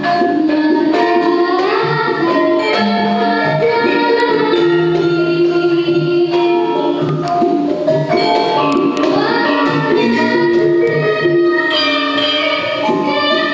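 Javanese gamelan ensemble playing a slow gending: metallophones (saron) and bonang pot gongs ringing on steady pitches over regular kendang drum strokes. A young singer's voice is heard singing along with it at times.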